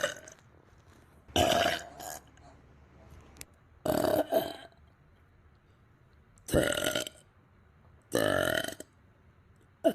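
A person burping loudly four times, each burp about half a second long and a couple of seconds apart, with a short fifth one starting at the very end.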